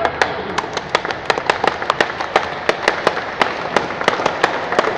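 Small crowd applauding, individual hand claps distinct and irregular, about five or six a second.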